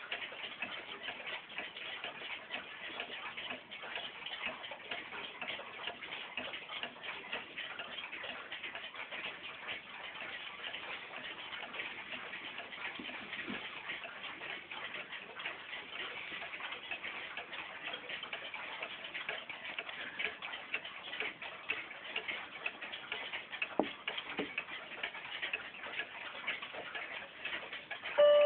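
1967 Junghans pendulum wall clock ticking steadily.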